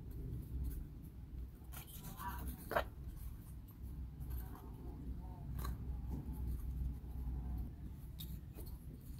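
Scattered light clicks and small scrapes of wooden puzzle pieces being handled and fitted together, with a sharper click a little under three seconds in, over a steady low hum.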